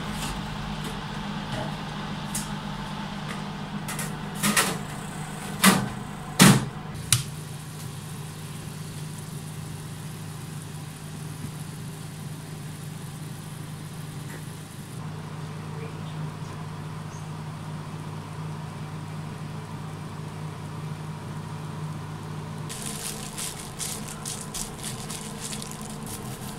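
Steady electric hum of a food dehydrator's fan running. Three sharp metallic knocks come between about four and a half and six and a half seconds in, as trays are slid into its racks. Near the end there is a run of crinkling clicks from plastic bags being handled.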